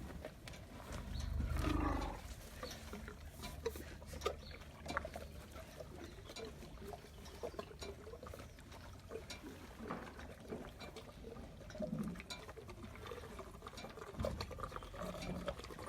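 Baby elephants in the nursery stables: a low rumble about a second and a half in and another shorter one near the end, amid scattered rustling and clicking sounds.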